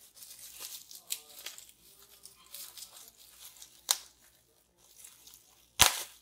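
Bubble wrap and a clear plastic bag crinkling as a small bottle is unwrapped by hand, with two sharp clicks, the louder one near the end.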